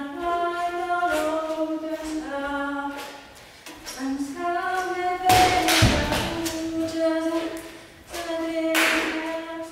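Unaccompanied singing: long held notes in short phrases, each note steady in pitch. About halfway through comes a loud thump with a rush of noise, and near the end a brief hissing rush.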